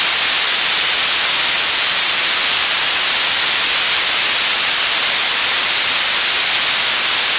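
Television static: a steady, loud hiss of white noise, weighted toward the high end, with no change in level.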